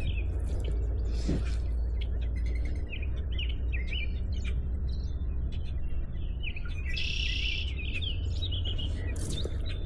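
Several small birds chirping and calling in short phrases, with one brief buzzy call about seven seconds in, over a steady low rumble.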